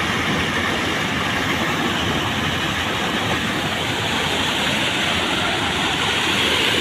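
Muddy water pouring over a small concrete weir, a steady rushing sound that holds even throughout.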